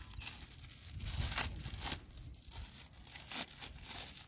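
Thin plastic bag crinkling and tearing as it is pulled open by hand, in a run of irregular rustling bursts, loudest about a second in.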